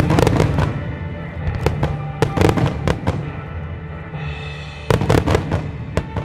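A starmine barrage of aerial firework shells bursting in rapid volleys of bangs, in several clusters with short lulls between. Music plays underneath.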